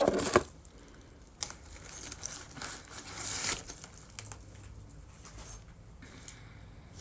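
Paper and packaging rustling and crinkling as items are handled in an opened mail package. It is loudest at the start, with a sharp click about one and a half seconds in, then lighter rustles.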